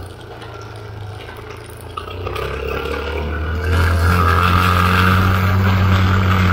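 Vehicle engine running while driving along a dirt trail, with tyre and road noise. It grows louder a little past halfway and then holds steady.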